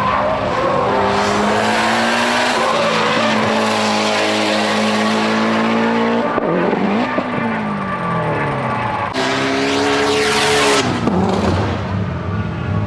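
Tuned Subaru Impreza GC8's turbocharged flat-four engine at full throttle, the revs climbing and dropping several times through gear changes, with a falling pitch as the car passes by near the end.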